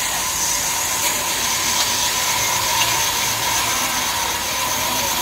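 Sawmill band saw running as it saws a jackfruit log: a steady high whine over a continuous hiss.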